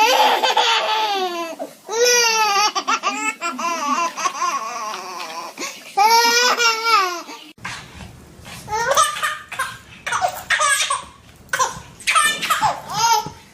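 A baby laughing hard in repeated high-pitched peals of giggles. About seven and a half seconds in the sound changes abruptly and the laughter goes on over a low background rumble.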